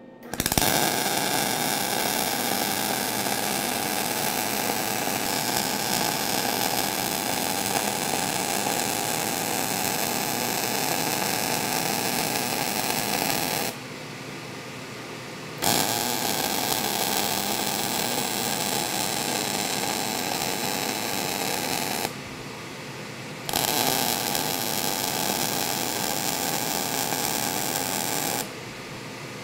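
MIG (GMAW) welding arc, solid wire under 75% argon / 25% CO2 shielding gas, running steadily from about half a second in. It breaks off three times for a second or two between weld strokes. In the breaks a quieter steady noise carries on, the fume extractor that comes on with the arc.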